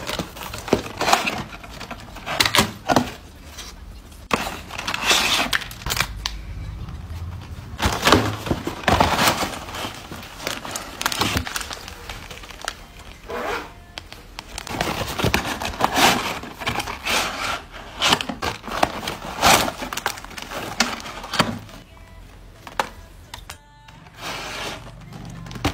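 Hands unpacking cardboard Oreo boxes and plastic-wrapped cookie packs: irregular rustling and crinkling of packaging, with sharp taps and clicks, coming in bursts.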